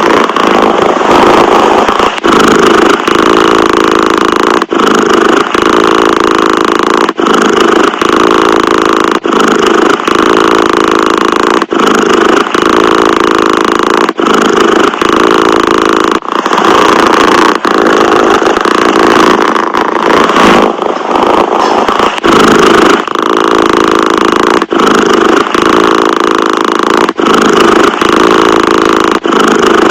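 A domestic cat purring: a loud, steady, rumbling purr that breaks off briefly about every two seconds, as the cat switches between breathing in and breathing out.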